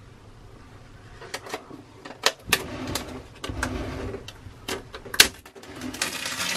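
Thin PE plastic release film rustling and crinkling as it is handled and peeled off freshly laminated fiberglass, with scattered sharp clicks and knocks from handling the bow-thruster motor bracket. The sounds start about a second in, and the rustling grows denser near the end.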